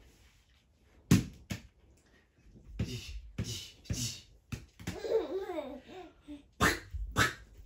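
A baby's babbling and laughter: short sharp bursts of sound, a wavering, pitch-gliding vocalisation about five seconds in, and a quick run of laugh-like bursts near the end.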